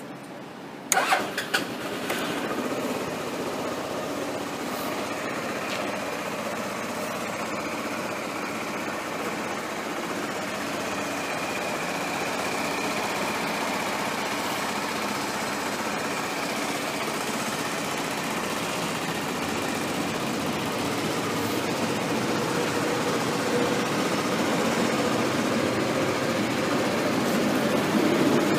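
2008 Suzuki Skywave 250 Type M scooter's single-cylinder engine started by its starter about a second in, catching at once, then idling steadily. The exhaust note grows louder near the end, heard close to the muffler.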